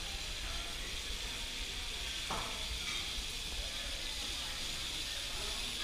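Food sizzling in a hot frying pan on a tabletop burner, a steady hiss, with a brief knock about two seconds in.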